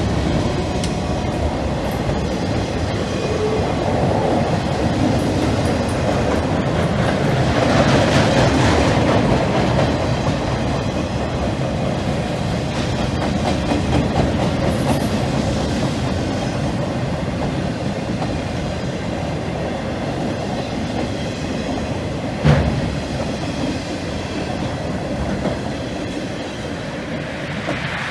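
Freight train rolling past, its wheels clattering over the rails in a steady run of noise, with one sharp bang about three-quarters of the way through.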